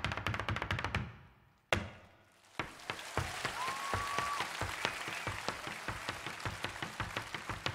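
Rapid Irish hard-shoe dance steps and drum beats end on one sharp stamp about two seconds in. After a short hush, the audience breaks into applause, with a short whistle from the crowd.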